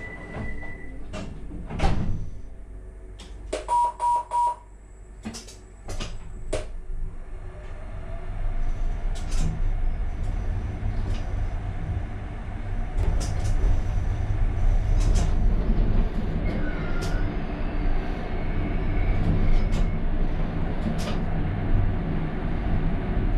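Alstom Citadis tram heard from the driver's cab: three short beeps of the door-closing warning and a few knocks, then the tram pulls away and its running rumble builds and holds. A brief squeal comes about three-quarters of the way through.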